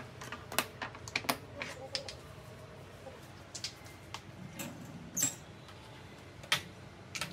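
Light clicks and taps of plastic shaker caps and glass spice grinders set down and handled on a kitchen countertop. After that a tall pull-out spice-rack drawer opens, giving a short squeak about five seconds in and a sharper click about a second later.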